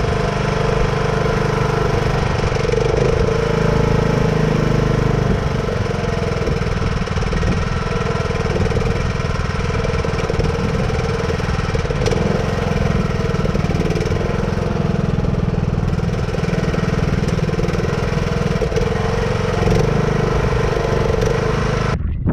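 Huskee riding lawn tractor's single-cylinder engine running steadily on its first test run after its carburetor was cleaned and refitted; it stops abruptly near the end.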